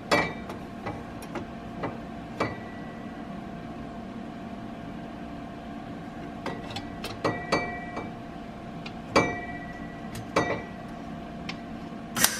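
Hand tool clinking and tapping on metal brackets at the front of an engine: a dozen or so sharp, irregular metallic clicks and knocks, some with a short ringing tail, over a faint steady hum. Right at the end a dense crackling burst begins.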